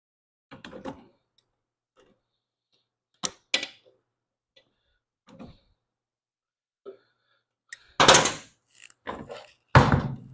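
Engine parts being handled and set in place while the top housing goes back onto a Briggs & Stratton mower engine: a string of separate clunks and rattles, the two loudest near the end.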